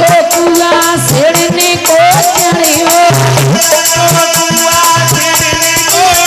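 Loud Indian folk music played over a loudspeaker: a melody line over fast, even rattle-type percussion.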